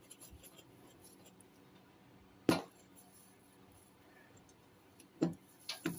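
Three short, sharp clicks from a hot soldering iron tip being worked on a sal ammoniac block with flux and solder to clean and retin it: one about halfway through, two close together near the end.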